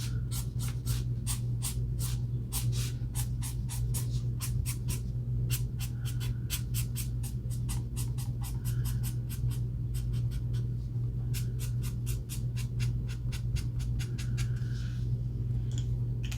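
Alcohol marker tip flicking across paper in quick short strokes, about four a second, laying down hair strands, with brief pauses twice. A steady low hum runs underneath.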